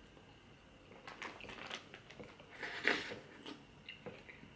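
Quiet close-up eating: a spoonful of cereal with ice cream and milk taken and chewed, with small wet mouth clicks and smacks. The loudest click comes about three seconds in.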